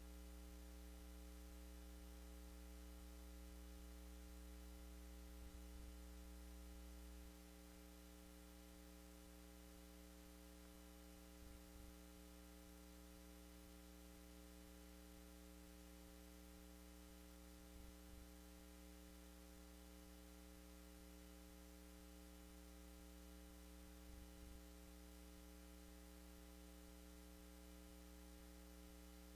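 Near silence: a faint steady electrical hum with light hiss, a few evenly spaced tones sitting under it, the lowest one dropping a little in level about seven seconds in.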